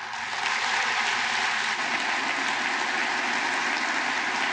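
Large audience of members of Congress giving a standing ovation, with dense, steady clapping that breaks out suddenly.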